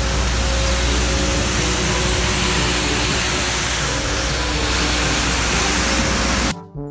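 Street sweeper running, a steady loud rushing noise from its engine and spinning side brooms scrubbing the paving, over a constant low hum. It cuts off abruptly near the end.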